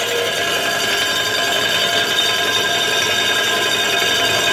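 Bag clamp filler's fill motor running steadily at full speed in the fast stage of a fill, before it slows for the final weight. Several steady whining tones sit over an even hiss.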